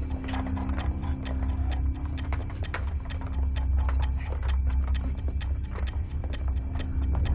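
Horses' hooves clattering in quick, irregular beats over a low steady drone.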